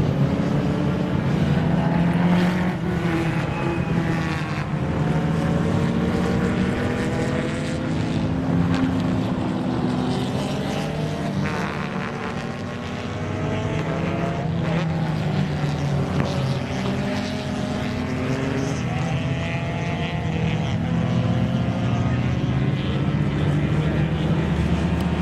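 Engines of several classic cars driving round a circuit together, their pitch gliding up and down as they accelerate and slow, over a steady low drone.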